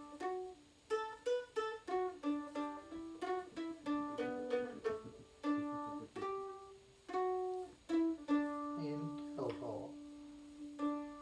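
Mandolin played solo: a melody of single plucked notes, settling about eight seconds in on one long held note that rings on and fades.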